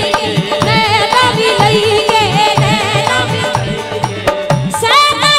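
Live devotional bhajan music with no lead vocal: tabla keeping a steady rhythm under an ornamented melody line. A brighter melodic phrase enters near the end.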